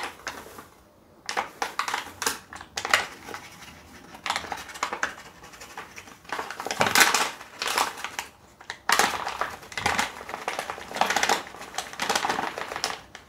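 Paper flour bag crinkling and rustling in repeated bursts as flour is shaken out of it into a stainless steel bowl.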